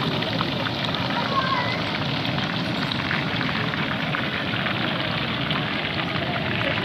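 Hot oil sizzling steadily in a large iron karahi as pieces of meat deep-fry.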